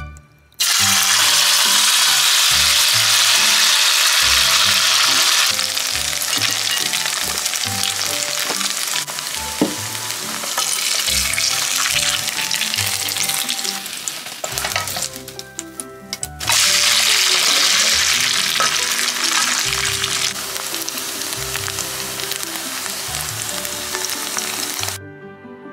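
Grated potato and salami frying in hot oil in a nonstick pan: a loud, steady sizzle that starts suddenly as the mix goes into the oil. It breaks off for about two seconds roughly two-thirds through, then starts again and stops just before the end. Soft background music runs underneath.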